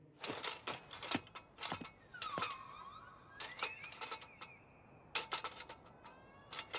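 A series of sharp, irregular clicks and taps, with faint whistle-like tones gliding up and down between them.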